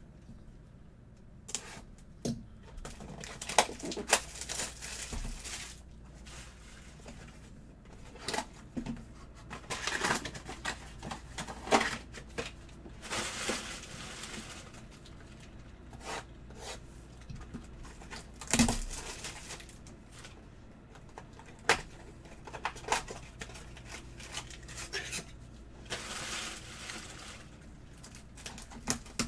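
Trading card box and packs being opened by hand: scattered tearing and crinkling of pack wrappers, with sharp taps and clicks of cards and cardboard.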